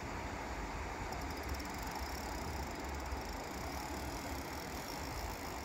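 Steady outdoor background noise: a low rumble with an even hiss over it. From about a second in, faint fast ticking runs for two or three seconds.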